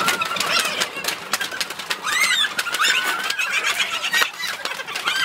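Swim fins slapping on paved tiles as a group of adults shuffles along in them, with shouts, whoops and laughter from the group over the slaps.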